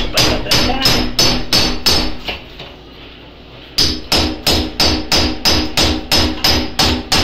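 Hammer blows on a door being knocked into its frame overhead, a steady run of about three strikes a second. The strikes stop for about a second and a half near the middle, then pick up again at the same pace.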